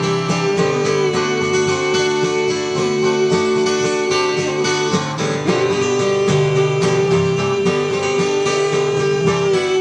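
Instrumental passage of a song: guitar strumming under a long held note, which breaks off briefly about five seconds in and then returns.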